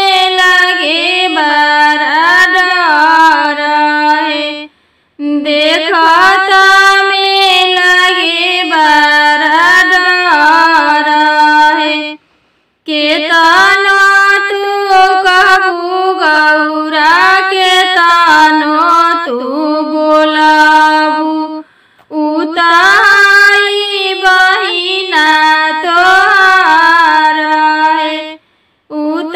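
A solo female voice singing a Bhojpuri devotional song to Shiva, unaccompanied, in long melodic lines broken by three short silences.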